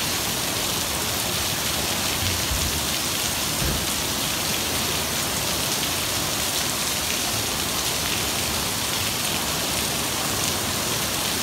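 Heavy rain pouring steadily onto a paved street and sidewalk: an even, unbroken hiss.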